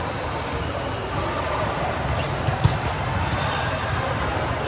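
A ball thudding repeatedly in an echoing gym, with one louder thump about two and a half seconds in, over a background of players' voices.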